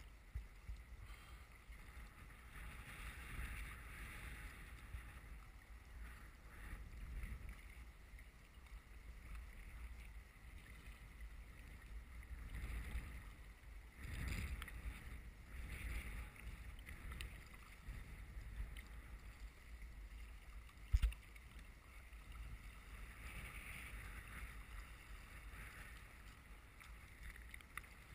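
Sea kayak paddle strokes: faint, rhythmic splashing and water lapping as the blades dip, over a low wind rumble on the microphone. About three-quarters of the way through there is a single sharp knock.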